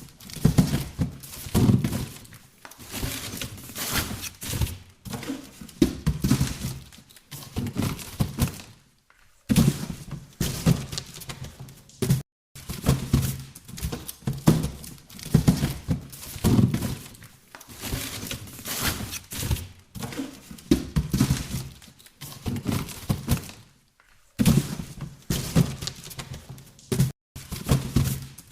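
Boxes being handled and shifted: irregular clusters of knocks, thuds and rustling scrapes, broken by a few brief pauses.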